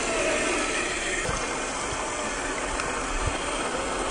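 Creek water rushing steadily. The whine of the RC crawler's 550 21T electric motor fades out in the first half second, leaving the water alone.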